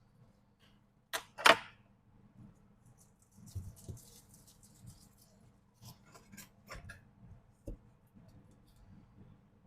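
Sharp clicks and taps of small tools and iPhone parts being handled during a screen repair. The loudest is a double snap about a second and a half in, followed by a scratchy rustle around four seconds, a few more clicks, and a dull knock near eight seconds.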